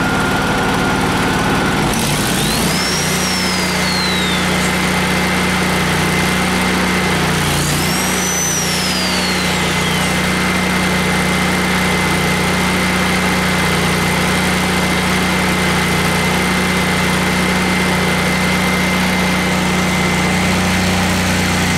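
Miller Bobcat 250 welder/generator's 20 hp Kohler engine running steadily. Its note shifts about two seconds in, then holds steady.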